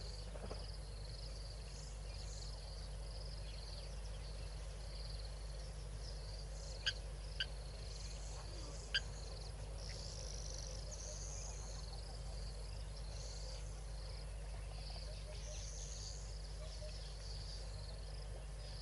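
Outdoor bush ambience: insects and birds chirping continuously at a high pitch over a steady low hum. Three short, sharp clicks come close together about seven to nine seconds in.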